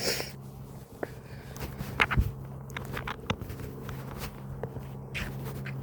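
Scattered short knocks and scuffs, loudest about two seconds in, over a steady low hum.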